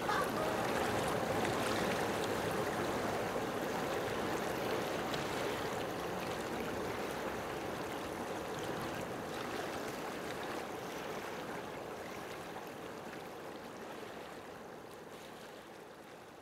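Steady rush of flowing water that swells in at the start and fades slowly away over the last several seconds.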